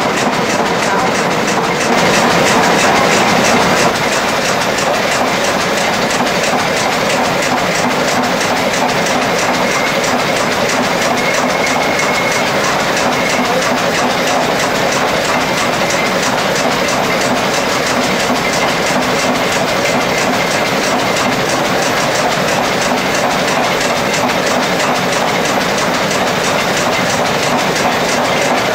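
Belt-driven overhead line shaft running, its flat belts, pulleys and shaft bearings making a steady, rapid clatter.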